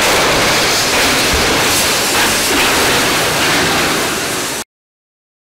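Truck tractor unit crashing into a city bus and scraping on through debris: a loud, even rush of noise with no clear separate blows. It cuts off abruptly about four and a half seconds in.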